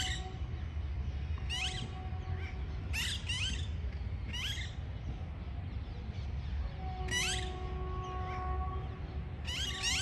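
Parrots giving short, harsh screeching calls, single or in quick pairs, every second or two, with a quieter gap through the middle, over a steady low rumble.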